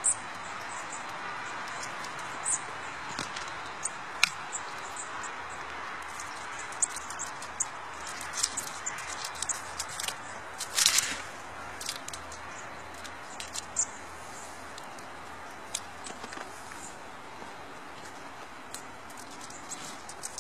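Scattered small high clicks and crackles of a Eurasian red squirrel taking and husking seeds from a hand, over a steady hiss; the loudest crackle comes about 11 seconds in.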